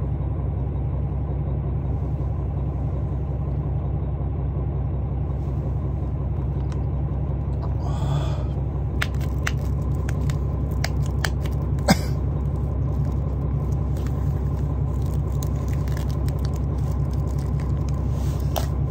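Steady low rumble inside the carriage of a diesel express train idling at a station. From about nine seconds in, plastic film crinkles and clicks as it is peeled off a wooden lunch box, with one sharp click about twelve seconds in.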